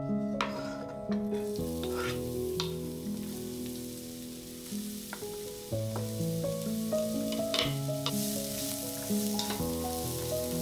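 Food sizzling in hot oil in a frying pan, with a few sharp clicks of a utensil stirring it, over background music.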